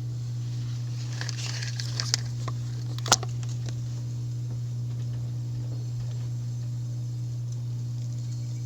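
2018 York 3-ton packaged heat pump running in a defrost cycle: a steady low hum, with a patch of light crackling and one sharp click about three seconds in.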